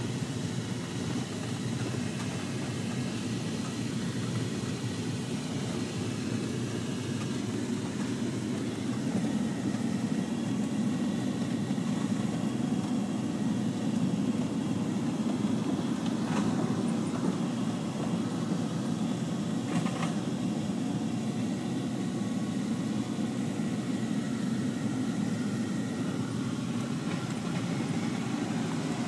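Steady low rumble of a vehicle driving over a rough hay field, heard from inside its cab, with two faint knocks a little past the middle.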